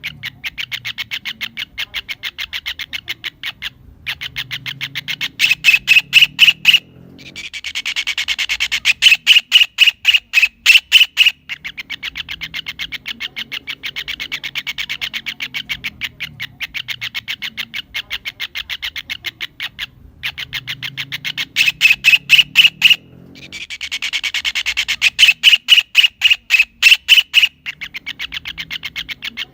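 Kingfisher (tengkek udang / cekakak) giving a fast, continuous series of sharp call notes that twice swell into louder, harsher rattling stretches. The same sequence repeats about every 16 seconds, like a looped recording.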